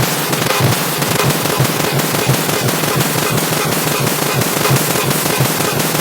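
Car horn beep sound effect layered many times over, merged into a loud, harsh, crackling wall of noise with rapid stuttering pulses and no clear single horn tone.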